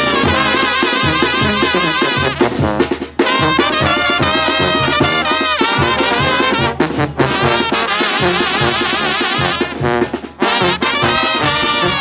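Mexican banda brass band playing: trumpets and trombones carry the melody with wide vibrato over a pulsing tuba bass line. The band breaks off briefly three times, between phrases.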